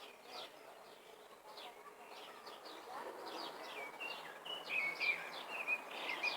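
Several small birds chirping in quick short calls, with clearer whistled notes growing louder in the second half, over a steady background hiss.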